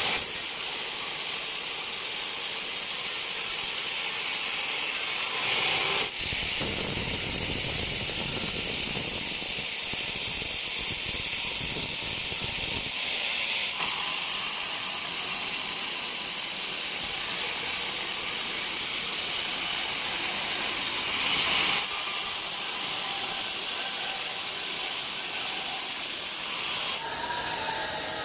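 Band sawmill running, a steady high-pitched hiss and whine of the blade, with the sound changing a few times (about 6, 13 and 21 seconds in) and a deeper rumble for several seconds after the first change.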